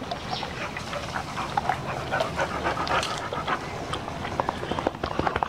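A large dog eating chunks of watermelon rind and flesh: rapid wet chomping, smacking and slurping, many irregular clicks, with noisy breathing between bites.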